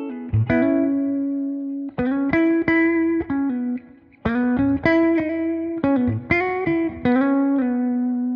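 Clean-toned electric guitar playing short phrases of picked single notes through a compressor pedal with its sustain turned up. Each note rings and fades slowly, with a brief gap just before the middle.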